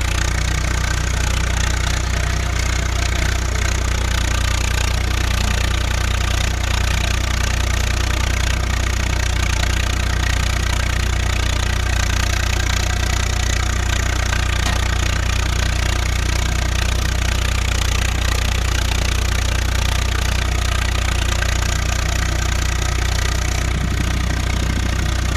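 Swaraj 855 tractor's three-cylinder diesel engine running steadily through a newly fitted silencer, with a deep, evenly pulsing exhaust note.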